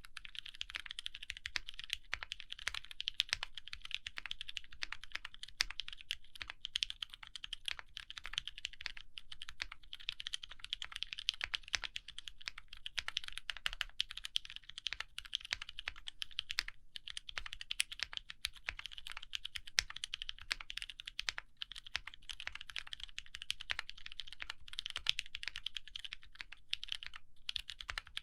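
Fast continuous typing on a TKC Portico gasket-mount mechanical keyboard with lubed Outemu Sky linear-feel switches on an FR4 plate and GMK keycaps: a dense stream of keystroke clicks and clacks, pausing briefly a couple of times.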